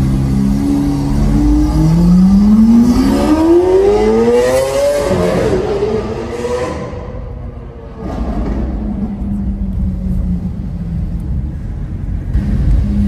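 Lamborghini Aventador SV Roadster's V12 with a Capristo exhaust accelerating hard: the pitch climbs steadily for about three seconds, drops at a gear change about five seconds in, and then dies down. A steady low engine drone comes back from about eight seconds in.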